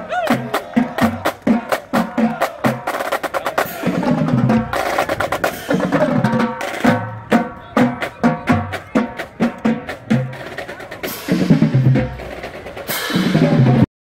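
Marching band drumline playing a cadence: snare drums with rapid rolls and strikes, tenor drums, and low bass drum beats. It cuts off abruptly at the end.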